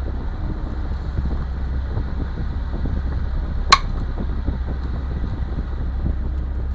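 Steady low background hum with one sharp click a little under four seconds in.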